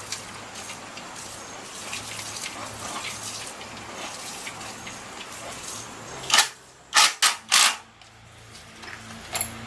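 Steady hiss over a faint low hum, then four loud, short bursts of hiss in quick succession about six to eight seconds in, and a weaker one near the end.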